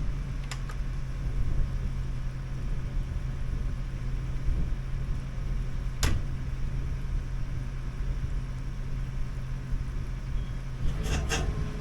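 Liugong 9051F mini excavator's engine running steadily, with a sharp click about half a second in, another in the middle and a few more near the end.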